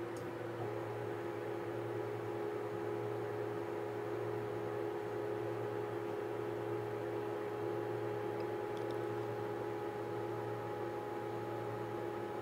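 Stepper motors of an Anolex 3020 desktop CNC router homing its axes: a steady, even-pitched motor whine that starts about half a second in, over a low steady hum.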